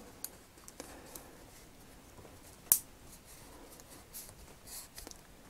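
Small metal screwdriver scraping and ticking inside the split plastic hip of a vintage LJN action figure's leg as it is wiggled to prise out the broken metal T-bar; faint scratching with one sharp click nearly three seconds in.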